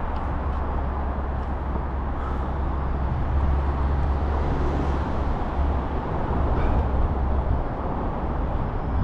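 Steady low rumble of road traffic on the bridge overhead, with no single vehicle standing out.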